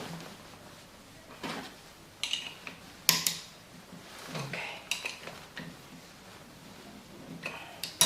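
Scattered metallic clicks and clinks of angle grinder parts being handled as the disc's locking nut is fitted and tightened, the sharpest knock about three seconds in.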